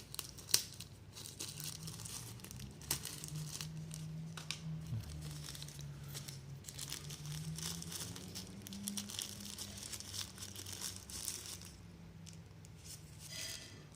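Earbud packaging being handled and searched through: crinkling and rustling with scattered small clicks, over a faint low hum.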